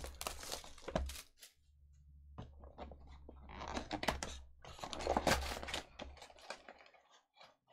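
Cardboard of a Panini Prizm Draft Picks Choice trading-card box being opened by hand: the flap torn open and the pack slid out. Sharp clicks and short spells of rustling and tearing, loudest about four and five seconds in.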